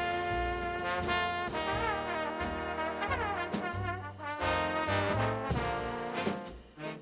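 Instrumental music with a brass-like lead melody over a moving bass line. It dips briefly near the end.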